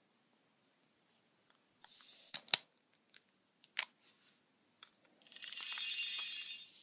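Toy packaging being handled and opened: a few sharp plastic clicks and snaps, the loudest about two and a half seconds in, then steady crinkling and rustling of plastic and cardboard from about five seconds in.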